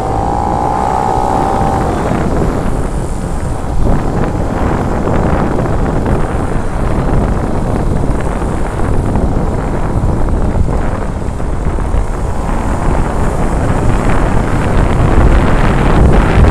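Small two-stroke autocycle engines running along at parade pace, mixed with wind rushing over the microphone of the moving bike; it grows a little louder near the end.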